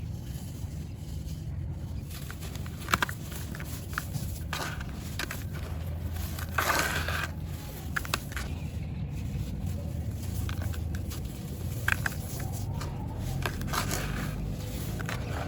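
Dry, brittle clumps crumbling and crushing: scattered sharp cracks and crackles, with a longer crumbling burst about seven seconds in, over a steady low hum.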